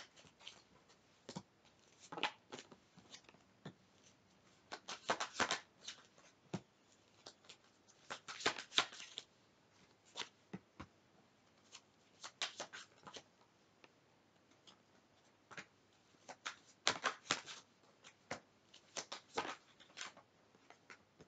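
Tarot cards being shuffled by hand: bursts of quick papery flicks every few seconds, with quiet pauses between.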